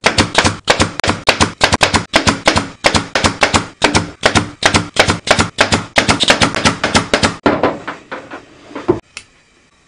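Upholstery staple gun firing staples in quick succession, several shots a second, through vinyl into a plywood panel. The shots thin out near the end and stop suddenly.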